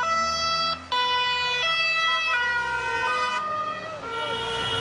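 Two-tone emergency siren, alternating between a high and a low note roughly every three-quarters of a second. The pattern weakens and changes about four seconds in.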